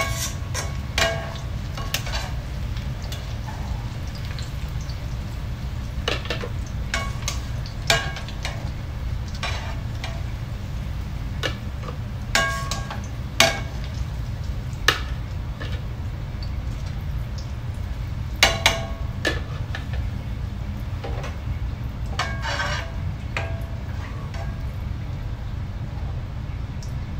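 Metal tongs and a ladle clinking and scraping against a nonstick wok and a plastic food-processor bowl as fried onions are lifted out of the oil, in irregular strikes over a steady low hum.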